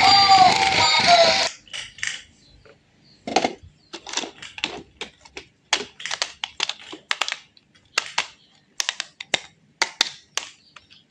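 Music with a synthetic singing voice for about the first second and a half, then it cuts off and gives way to a run of irregular, sharp clicks and clacks of small hard objects being handled, some in quick clusters.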